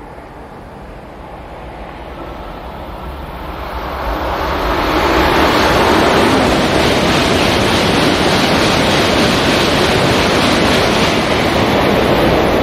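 Shinkansen bullet train passing through the station at high speed without stopping: a rushing noise that swells over the first five seconds as it approaches, then a loud, steady rush of air and wheels as the cars sweep by.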